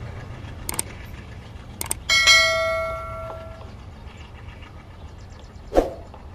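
Subscribe-button animation sound effects: a few short mouse clicks, then a bright notification-bell ding about two seconds in that rings and fades over about a second and a half, and a short pop near the end, over a steady low rumble.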